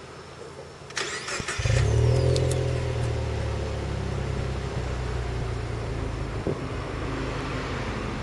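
Subaru Legacy BP5's 2.0-litre flat-four boxer engine, breathing through a Ganador Racing Titan titanium muffler, being started. The starter cranks briefly about a second in, then the engine catches and settles into a steady idle.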